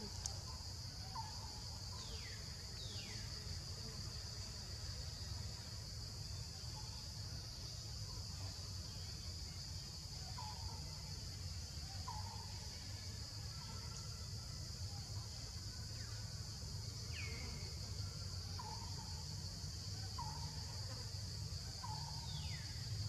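A steady, high-pitched insect chorus, with a few short chirps and falling whistles from birds scattered through it, over a low steady hum.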